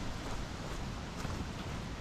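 Steady outdoor background hiss with an unsteady low rumble, and no distinct calls or strikes.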